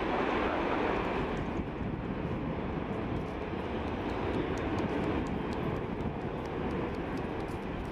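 Airliner jet engines running: a steady rushing noise, a little louder in the first second and then even.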